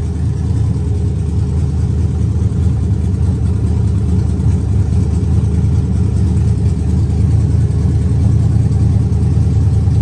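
Freshly top-end-rebuilt stock 5.3-litre V8 truck engine running steadily with a deep, even drone, being run to burn off fuel.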